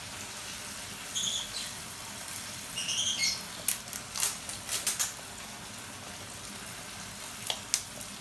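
Diced carrots and green capsicum frying in oil in a pan, a steady sizzle. Short high squeaks come twice in the first few seconds, a cluster of sharp clicks about four to five seconds in, and two more clicks near the end.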